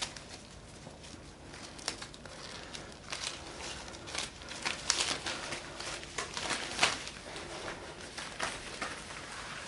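Rustling of a cloth or towel and clothing being handled, with scattered light clicks and taps, thickest and loudest about five to seven seconds in.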